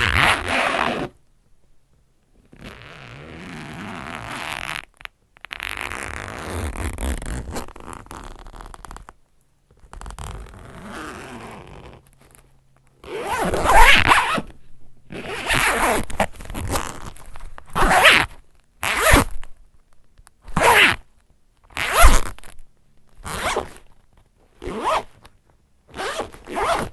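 A zipper being zipped back and forth again and again. First comes a few slow, long, fairly quiet pulls, then from about halfway in a run of about ten quick, short, louder zips.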